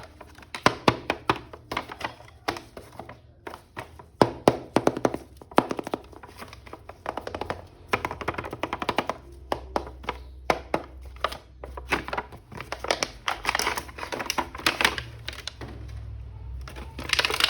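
Hands unboxing and handling a plastic action figure: many quick clicks, taps and knocks of plastic in irregular clusters. A low hum comes in about halfway through.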